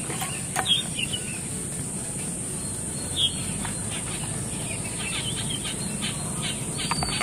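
Birds chirping here and there over a steady high-pitched hiss, with a few sharp plastic clicks as a toy's wired remote control is handled and its battery cover is taken off.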